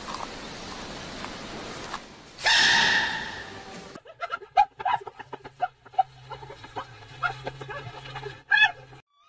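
A giant panda cub sneezing once: a sudden loud, squeaky sneeze about two and a half seconds in, over the steady hiss of an old recording. After a cut, a scattered run of short clicks and brief high-pitched sounds.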